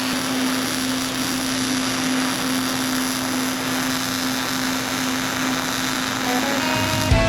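A motor-driven power tool running steadily under a constant hum, with acoustic guitar music coming in near the end.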